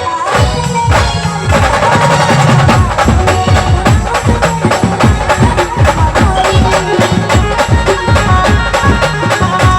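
Maharashtrian brass band playing: drums and small percussion beat a fast, steady rhythm under a sustained melodic line, with no singing.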